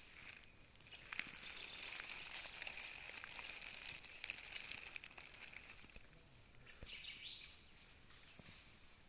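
Faint outdoor nature ambience: a steady high hiss with scattered small clicks, louder through the first half. A short, high bird call comes about seven seconds in.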